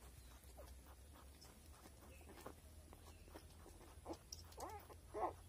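Newborn piglet making short, squeaky pitched calls, faint and scattered at first, then coming louder and closer together over the last second or so.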